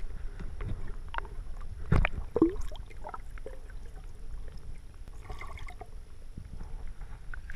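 Water sloshing and gurgling as a dog paddles through a swimming pool, heard from under the water, with a couple of louder knocks about two seconds in.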